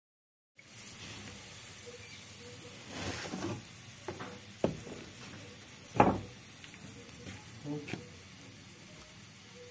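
Minced meat and scrambled egg sizzling in oil in a pan, starting about half a second in, with a spatula knocking and scraping against the pan a few times; the sharpest knock comes about six seconds in.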